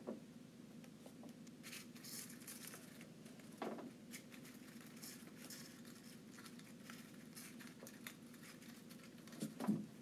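Cockatiel's beak nibbling and tearing a folded colored-paper flower: faint, rapid crinkling, tearing and small clicks. Two louder soft thumps, about a third of the way in and near the end.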